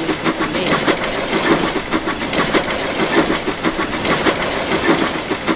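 Steam train running: fast chuffing and hissing with rapid wheel clatter.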